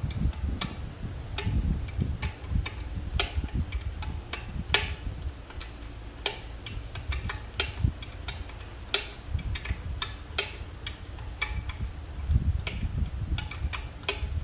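Irregular sharp metal clicks and ticks of a box-end wrench working a 12 mm bolt on a transmission bearing retaining plate, with dull low knocks from handling the parts.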